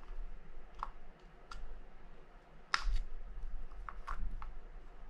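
A handful of small, separate clicks and taps as a screwdriver and metal parts work against the body and rotor of a Shimano Baitrunner 12000D spinning reel during disassembly. The loudest pair comes a little under three seconds in.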